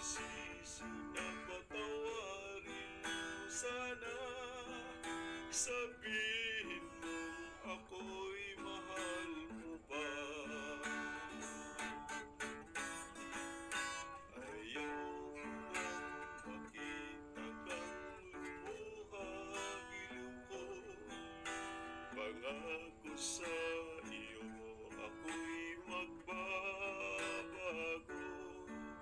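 Background music led by a plucked guitar, steady throughout.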